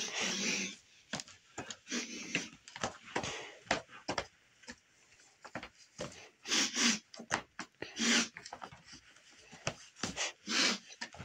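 A man imitating a dog: short, breathy sniffing noises in scattered bursts with pauses between, a few louder huffs about two-thirds of the way through and near the end.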